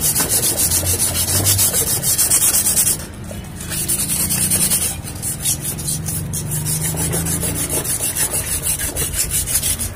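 Hand sanding with 150-grit sandpaper: quick back-and-forth strokes across the metal heating plate of an electric tyre puncture-repair vulcanizer, scouring off grime and stuck-on tube rubber. The strokes pause briefly about three seconds in.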